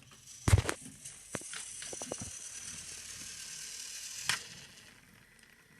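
Plastic toy engines being handled on a toy track: a loud knock about half a second in and a few light clicks over a steady high whirring hiss, then a sharp click a little past four seconds, after which the whir fades.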